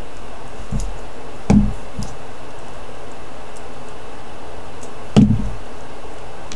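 Small knocks from jewellery pliers being handled on a craft cutting mat: a soft tap, a louder knock about a second and a half in, another soft tap, and a second louder knock near the end, over a steady background hiss.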